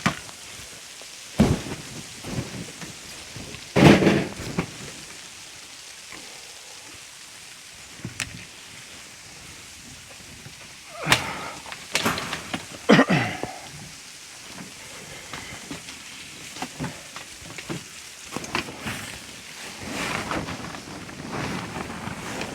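Snow and ice being knocked off a tarp canopy: several heavy thumps and sliding rushes as the tarp is pushed from underneath, over a steady hiss of falling sleet.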